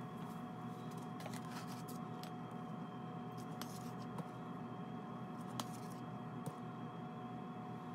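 A metal scoop clinking and scraping lightly against a container as dry glaze powder is scooped and poured onto a scale. A few scattered clicks sit over a steady hum with a faint constant whine.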